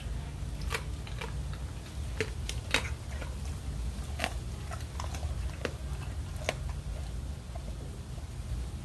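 A Doberman crunching and chewing chicken wings: a string of irregular sharp bone cracks, the loudest a little under three seconds in.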